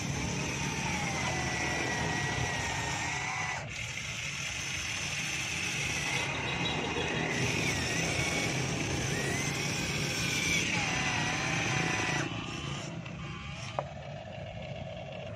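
Motors and hydraulic pump of a radio-controlled long-reach excavator model whining as it works, the whine gliding up and down in pitch. The sound eases off about twelve seconds in, with a single sharp click shortly after.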